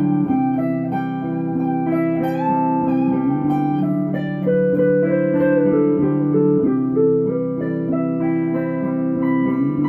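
Guitar music: chords held underneath a melody line whose notes step and now and then slide in pitch.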